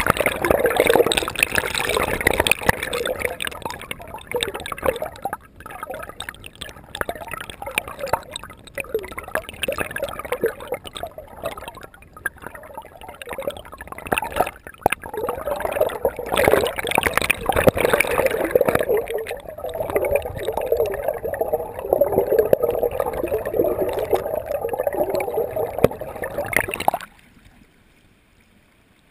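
River water sloshing, bubbling and gurgling around a half-submerged camera, heard muffled and irregular as the surface breaks over the lens. Near the end it cuts off suddenly to a faint hush.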